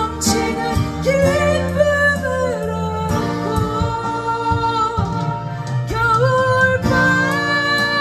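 A woman singing a slow ballad with long held notes, accompanying herself on a steel-string acoustic guitar.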